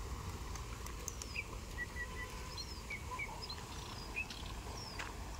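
Small birds chirping in short, scattered calls, some as quick falling notes, over a steady low outdoor rumble, with a sharp click about five seconds in.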